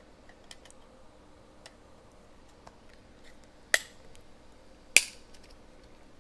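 Two short, sharp clicks about a second and a quarter apart, with a few fainter ticks, over a quiet background.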